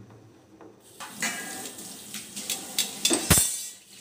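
Water boiling in a steel pot with chicken thighs in it, a bubbling hiss with scattered pops that starts about a second in. There is one louder low knock a little after three seconds.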